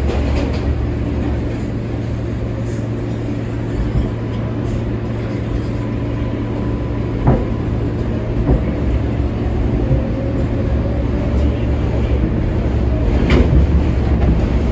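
R143 subway train running between stations: a steady rumble with a constant hum from its traction motors, and a few sharp clicks from the wheels passing over rail joints.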